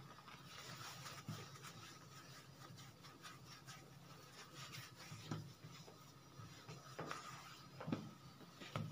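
Faint rubbing of hands rolling and pressing two ropes of bread dough together on a floured stone counter, with a few soft knocks in the second half.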